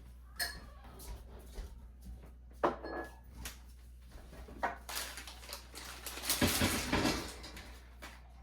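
Pantry items being handled: scattered light knocks and clicks of containers, then a longer rustling clatter about six and a half seconds in, over a steady low hum.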